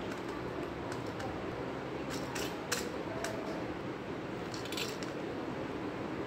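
Dry puffed rice and sev being handled in a steel plate: a few short, crisp rustles and light taps, the loudest group about two to three seconds in, over a steady low hum.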